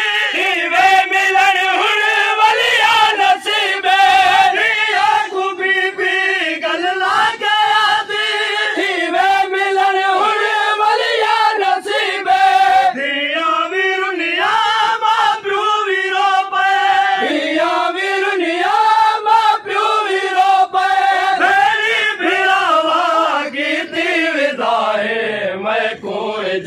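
Men chanting a Shia noha lament in Punjabi/Saraiki, sung continuously by a lead reciter on a microphone with the group joining in, with scattered slaps of chest-beating matam.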